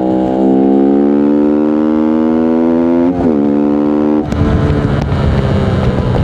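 Voge 125R's single-cylinder 125 cc engine accelerating, its pitch rising steadily, with a brief dip about three seconds in. About four seconds in the throttle closes and the steady engine tone gives way to a rougher mix of engine and wind noise.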